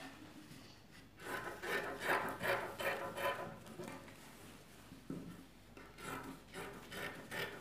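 Scissors cutting through fabric in a run of repeated snipping strokes, a pause about halfway, then more strokes near the end.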